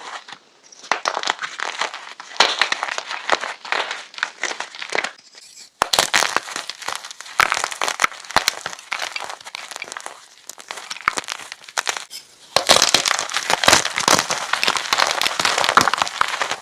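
Crisp, crackly crunching of fresh chalk sticks: a dense run of sharp snaps and crumbles, with a short lull about five seconds in and a louder stretch in the last few seconds.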